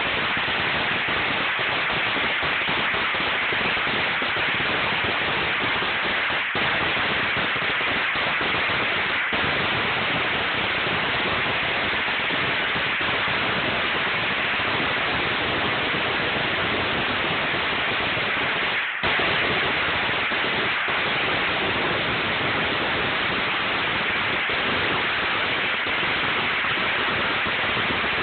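A long string of firecrackers going off without a break, the bangs so dense they merge into one steady crackle, with a brief drop about two-thirds of the way through.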